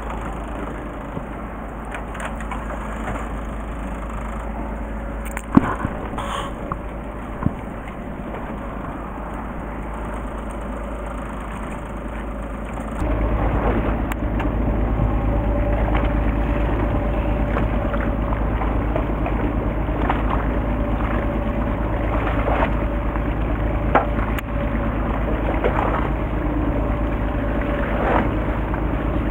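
Fishing boat's engine running steadily under wind and water noise, with a few sharp knocks about five to seven seconds in. The engine noise grows louder about thirteen seconds in.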